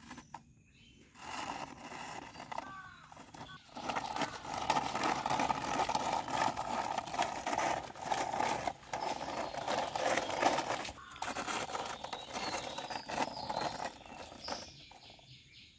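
Plastic toy motorbike pushed by hand over brick, its plastic wheels rolling and scraping with a dense crackling rattle, loudest through the middle.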